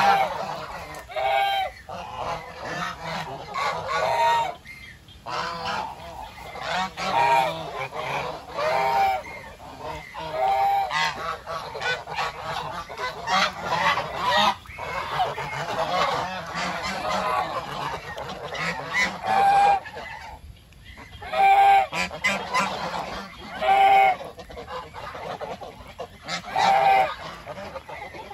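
A flock of brown Chinese geese honking continuously, many calls overlapping, with louder single honks standing out every two or three seconds.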